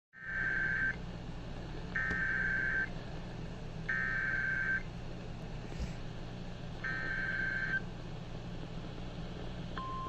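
Four bursts of Emergency Alert System SAME header data, each about a second long, received over AM radio through a radio's speaker with a steady hum underneath; they open a flash flood warning. A single steady attention tone begins just at the end.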